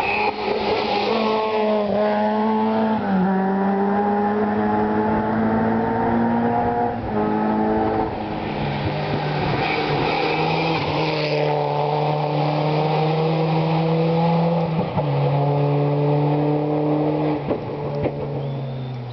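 Two rally cars driven hard one after the other up a gravel stage, engines running at full throttle with the engine note dropping sharply in steps several times.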